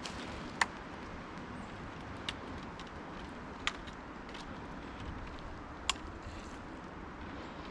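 A few sharp crunches and snaps of footsteps on dry leaves and twigs, about four spread over the stretch, over a steady low background rumble.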